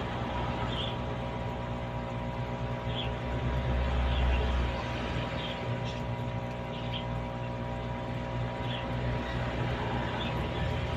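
Steady mechanical hum of an aquarium pump, with a low rumble that swells briefly about four seconds in and faint short high chirps now and then.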